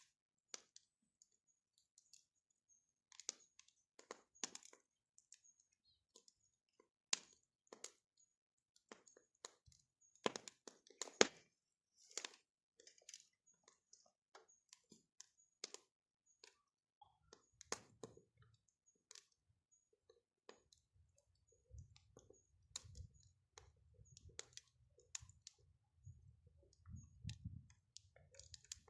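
Wood bonfire crackling: faint, irregular sharp pops and snaps, with a low rumble joining in a little past halfway.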